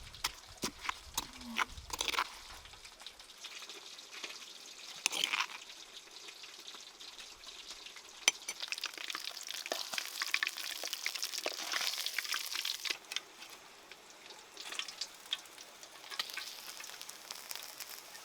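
Food sizzling in a hot pan while a utensil stirs and clicks against it. Sharp clicks dominate the first few seconds; the sizzle swells in the middle and again near the end.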